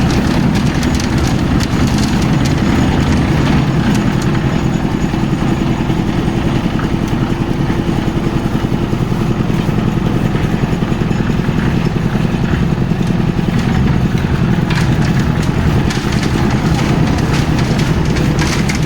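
Concrete mixer machine's engine running with a steady, even drone.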